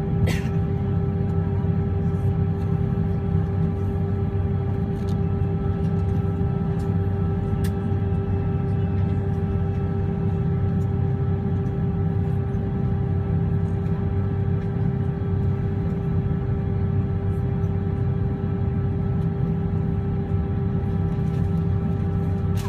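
Steady cabin noise of an airliner heard from inside: a deep engine and airflow rumble with a constant hum of several fixed tones, unchanging in level. A brief click comes right at the start.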